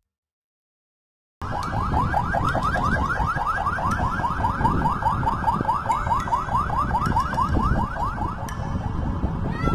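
An electronic alarm, car-alarm style, sounding a fast, very regular run of identical short rising chirps, several a second, over a low outdoor noise. It cuts in abruptly after about a second and a half of silence.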